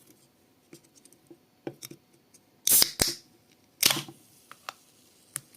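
Aluminium drink can of vanilla Coca-Cola being handled with small clicks, then its pull tab cracked open: two short, loud hisses of escaping gas about a second apart, with a sharp click between them.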